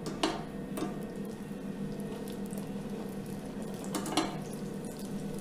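A few light clicks and knocks from handling a countertop electric deep fryer, over a steady low hum.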